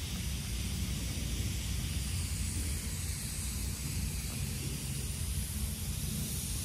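Steady outdoor background noise: a low rumble with a constant hiss over it, and no distinct events.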